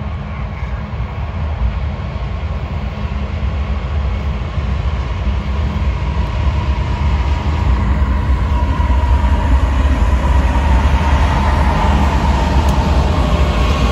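Diesel locomotives leading a BNSF freight train approaching and passing close by: a heavy low engine rumble that grows louder over the first ten seconds or so, with a wavering whine over it as the lead units go by.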